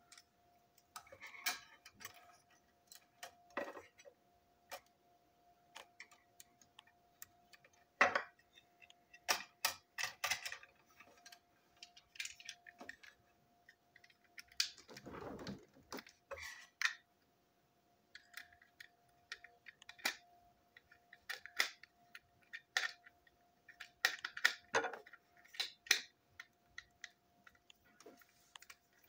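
Irregular small clicks and taps of a toy railway coach's parts being handled and fitted together by hand, with a short rustle about halfway through. A faint steady hum runs underneath.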